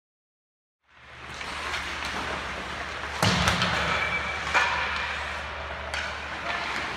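After about a second of silence, ice hockey practice sounds in an indoor rink: steady arena hum with skates on ice, and three sharp knocks of sticks and pucks about a second and a half apart.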